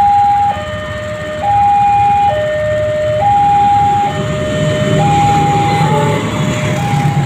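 Railway level-crossing warning alarm from a pole-mounted loudspeaker, alternating a higher and a lower tone about once a second. From about five seconds in, the low rumble of a diesel locomotive builds as it passes over the crossing.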